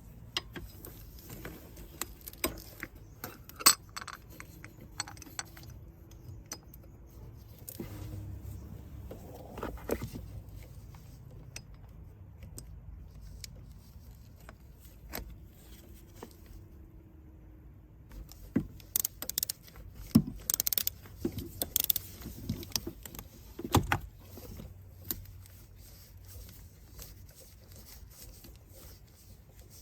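Scattered small metallic clinks and rattles, with a sharp one a few seconds in and a dense run of clatter about two-thirds of the way through.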